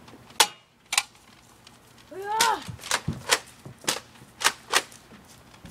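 Toy foam-dart blasters firing: a string of about seven sharp snaps spread over a few seconds. A short shout comes about two seconds in.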